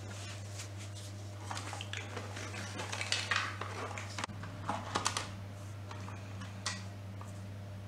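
Hands working inside the opened plastic casing of a computer UPS and pulling at its wiring: scattered clicks, taps and rattles of plastic, most of them between about three and five seconds in, over a steady low hum.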